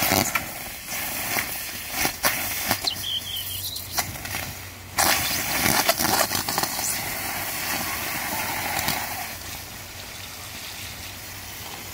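Hose water splashing onto a mold of freshly poured, still-molten aluminum, hissing and sputtering into steam on the hot metal, with sharp crackles and a sudden louder burst about five seconds in. It dies down to a quieter steady hiss after about nine seconds.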